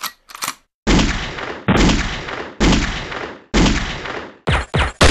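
Gunshot sound effects: two short clicks, then four heavy gunshots about a second apart, each trailing off in a long echo. Near the end come two quick, sharper shots and a louder shot right at the close.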